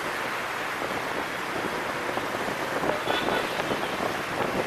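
Wind rushing over the microphone with the steady road and engine noise of a moving motorbike.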